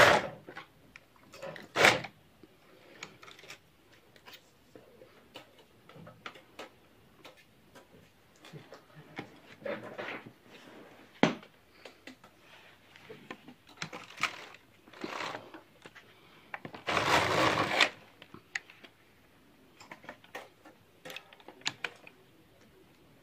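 Passap knitting machine carriage being pushed across the needle beds, a clattering run of metal needles and carriage: one pass ending at the start with a knock about two seconds in, and a longer pass of about a second and a half past the middle. Small clicks and handling knocks of the machine in between.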